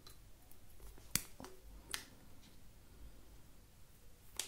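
Black vinyl electrical tape being pulled and snapped off the roll while wrapping a wire joint: a few short, sharp snaps, the loudest about a second in and another near the end.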